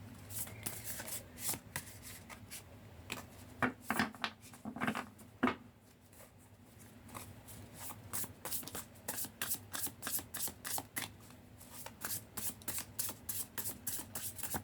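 Tarot cards being shuffled by hand: a few irregular snaps of the cards in the first half, then a quicker, even run of flicks, about three or four a second, from about eight seconds in.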